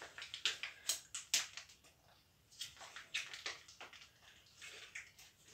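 Mayonnaise being squeezed from a soft plastic pack onto diced potatoes: faint, scattered short crinkles and squirts in several small clusters.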